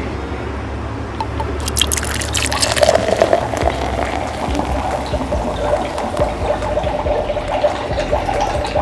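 Water poured into a plastic toy cauldron: a splashy start about two seconds in, then a steady pouring trickle.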